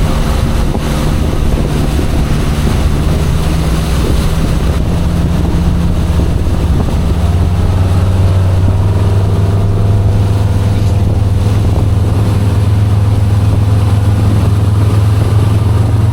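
Motorboat engine running steadily under way, with wind and water rushing; about seven seconds in its note settles lower and stronger.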